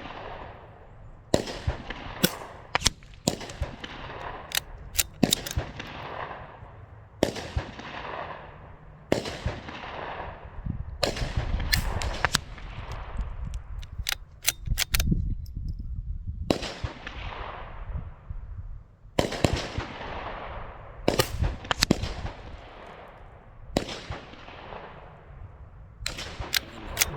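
Series of gunshots from a Mark II rifle: about a dozen main reports at irregular intervals of one to three seconds, each trailing off in a long echo, with shorter sharp cracks in between and a brief pause about halfway through.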